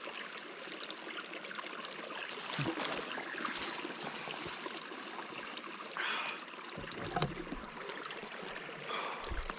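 Small stream of water trickling steadily, with a few soft knocks and low handling thumps.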